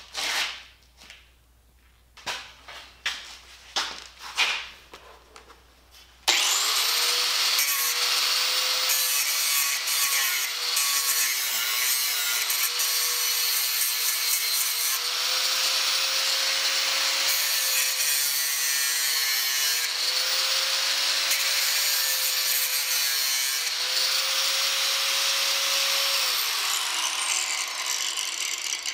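Angle grinder grinding down a MIG weld on a steel wheelbarrow rim, cleaning up the flux-core weld joint. Its motor pitch sags and recovers as it is pressed into the work, then winds down near the end. Before it starts, a few scattered knocks of metal being handled.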